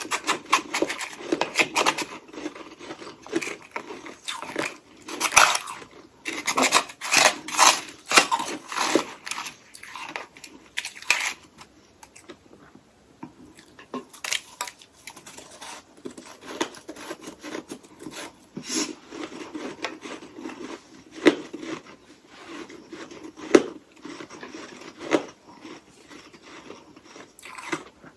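A person biting and chewing hollow ice sticks coated in freezer frost, making crisp crunching. The crunches come thick and fast at first, pause briefly about halfway, then come sparser.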